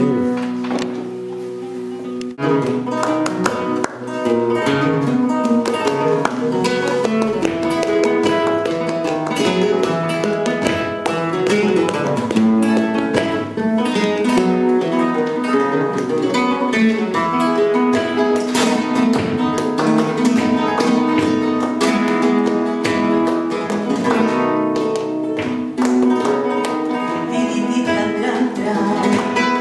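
Acoustic guitar playing flamenco music: a dense run of quickly plucked notes and chords.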